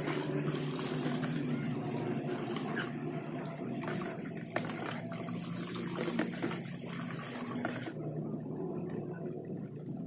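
Water running and splashing while a dog is washed and rubbed by hand, with small clicks and knocks; the high hiss of the water stops about eight seconds in.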